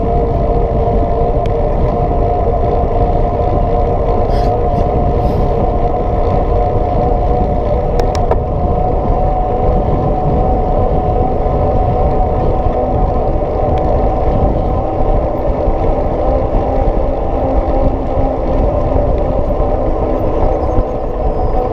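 Mountain-bike tyres humming steadily on asphalt at riding speed, with wind rumbling on the bike-mounted camera's microphone.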